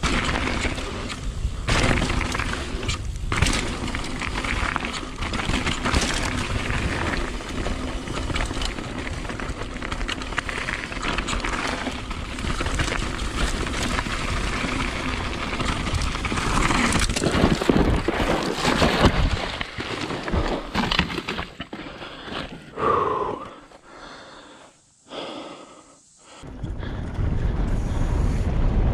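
Mountain bike ridden fast down a rough dirt trail: wind rushing over the bike-mounted camera's microphone, with tyres on gravel and the bike rattling and knocking over bumps. The noise falls away for a couple of seconds near the end, then picks up again.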